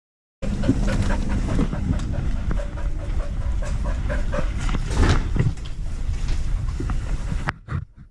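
Labrador panting hard right at a GoPro strapped to its body, with knocks and rubbing from the camera mount as the dog moves. It starts suddenly about half a second in and drops away near the end.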